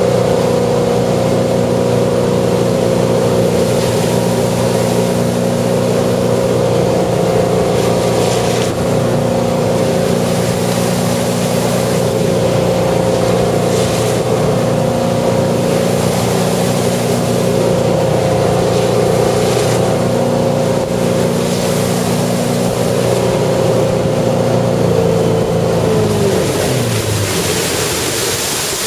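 Ski boat's engine running steadily at towing speed, with water rushing along the hull. Near the end the engine's pitch drops away as the boat slows.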